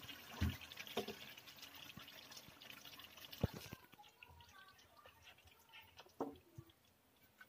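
Menudo sauce bubbling faintly in a frying pan, with a few light clicks and scrapes of a spoon against the pan as the stew is scooped onto a plate.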